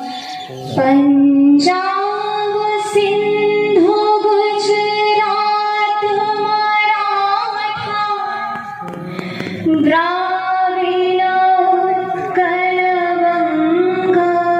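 A woman singing solo into a microphone, holding long drawn-out notes with short breaks between phrases.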